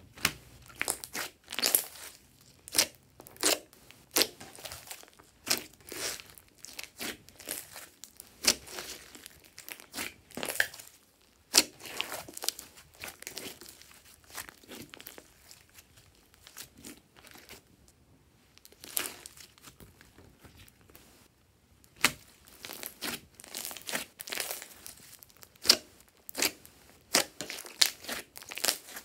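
Glossy slime being stretched, folded and pressed by hand, giving sharp sticky pops and crackles in irregular clusters, with a couple of short lulls.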